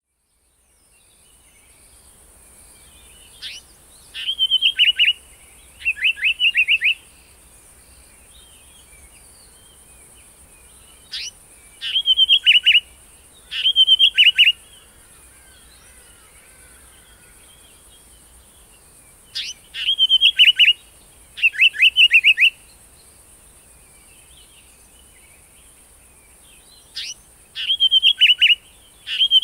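Indian paradise flycatcher calling: four bouts, each a single sharp note followed by two quick runs of harsh, rasping notes, repeated about every seven to eight seconds.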